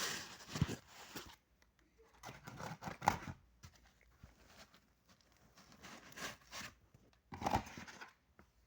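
Laptop packaging being pulled out of its box and handled, rustling and crinkling in about four short bursts with quiet gaps between.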